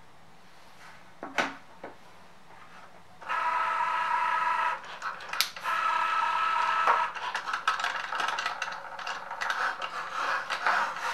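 Cricut Joy cutting machine's motors whirring as it cuts a card with its fine point blade. After a couple of soft clicks, a steady whine starts about three seconds in, then turns choppier with many quick clicks as the carriage and mat shuttle back and forth.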